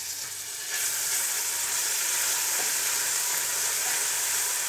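Ginger and garlic paste sizzling in hot oil with fried onions in a steel pot, stirred with a wooden spatula. The steady hiss grows louder a little under a second in.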